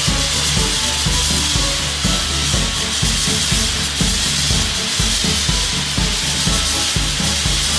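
Abrasive grit-blasting nozzle hissing steadily as compressed air drives grit against a steel ship hull, stripping red paint down to bare metal.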